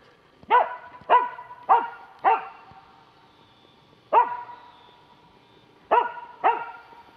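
Karelo-Finnish laika barking at a squirrel treed in a pine: seven sharp barks, a quick run of four, then one, then two more, the steady barking that holds game up a tree for the hunter.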